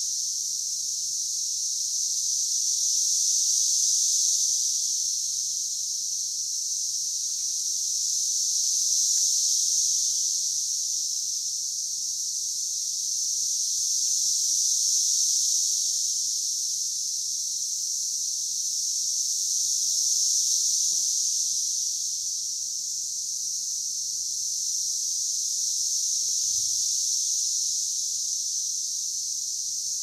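A chorus of male Brood X periodical cicadas singing their mating call: a steady high-pitched buzzing that swells and fades in slow waves about every five to six seconds.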